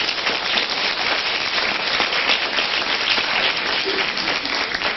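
A studio audience applauding: a dense, steady patter of many hands clapping.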